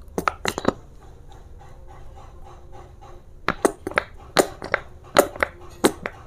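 Small plastic squeeze bottle of chili sauce squeezed and shaken upside down, sputtering and spurting sauce in short sharp bursts. There are a few bursts just after the start and a longer run in the second half.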